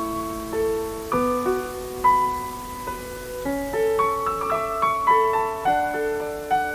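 Background piano music: a gentle melody of notes that ring and fade over held chords, the notes coming a little quicker in the second half.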